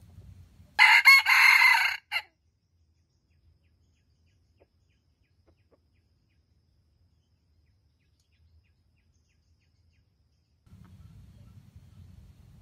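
A red junglefowl rooster crows once, a loud crow of about a second ending in a short clipped final note. Near the end a faint low rumble starts.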